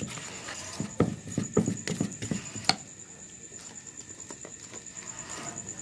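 Plastic rice paddle scraping and knocking against a plastic bowl as a crumbly carp bait mix is stirred, ending with one sharp tap about two and a half seconds in. A steady high insect trill runs underneath.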